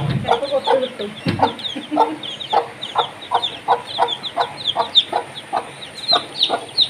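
Mother hen clucking in short, low, evenly repeated clucks, about three a second, while her newly hatched chicks peep in quick, high, falling chirps.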